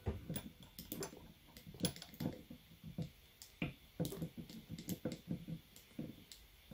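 Irregular small clicks and taps of hard action-figure armor pieces being handled and pressed into place, a tiny shoulder part fitted onto a Saint Seiya Myth Cloth EX figure.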